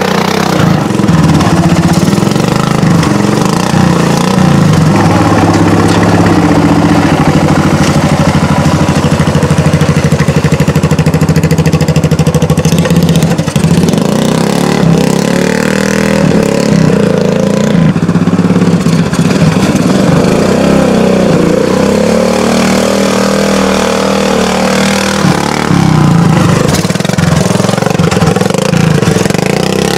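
Modified riding lawn mower's engine running loud and continuous as it drives through mud, its note wavering up and down with the load.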